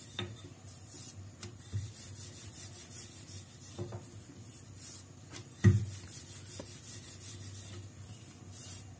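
Wooden rolling pin rolling out a stiff sheet of maida-and-semolina dough on a granite countertop: a steady rubbing, broken by a few knocks, the loudest a little before six seconds in.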